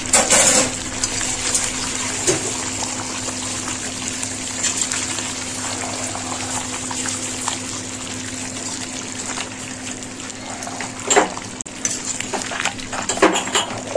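Chicken curry sizzling and bubbling in a large metal kadhai, with a steady hum underneath. A few sharp clanks of the stirring spoon against the pan, one about two seconds in and a few near the end.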